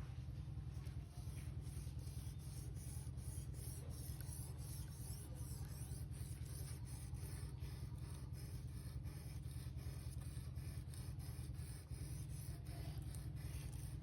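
Victorinox knife blade being drawn over a sharpener in quick, even strokes, about three scrapes a second.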